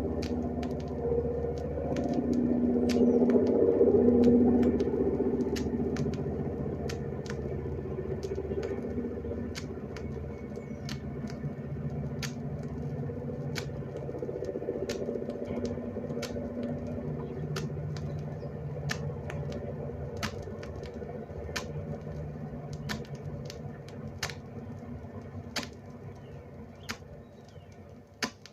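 Recorded airliner engines droning, played from a 78 rpm sound-effects record; the drone swells a few seconds in and then slowly fades. A sharp click repeats regularly, about every second and a bit, from a defect on the record that the owner suspects is a finger mark.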